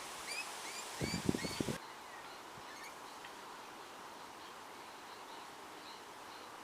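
Birds chirping in a quick run of short rising notes, with a brief louder low rumble about a second in. Then fainter scattered chirps over a steady outdoor hiss.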